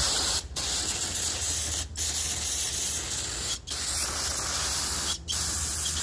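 Aerosol can of brake parts cleaner spraying through its straw onto an oily metal valve housing, a loud steady hiss in long squirts with four brief breaks. The parts are being degreased before the valves are resealed.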